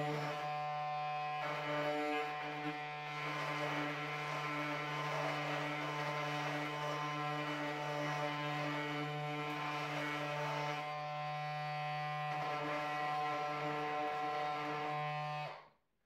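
Parkside Performance PAMFWP 20 Li B2 cordless oscillating multi-tool running with a triangular sanding pad against a spruce beam. It gives a steady buzz at one pitch, easing slightly a couple of times, and stops suddenly near the end.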